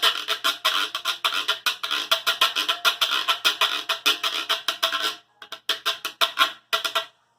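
Plastic Cuban güiro scraped in a fast rhythm of short strokes. The playing breaks off about five seconds in, picks up again for under two seconds, and stops shortly before the end.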